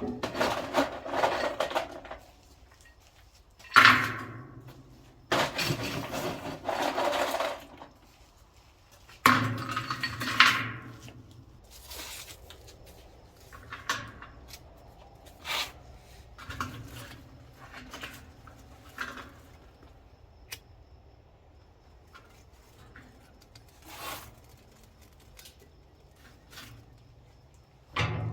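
Irregular clanks and scraping of metal objects being handled, some strikes sharp with a short ring, others longer rough scrapes of a second or two.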